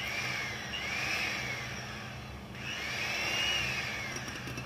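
Electric hand mixer running at low speed in whipped egg whites at the soft-peak stage: a steady motor hum with a higher whine that rises and falls about three times. The low-speed beating knocks the large air bubbles out of the meringue.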